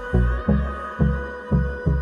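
Electronic background music: a deep bass pulse about twice a second under a held synth chord.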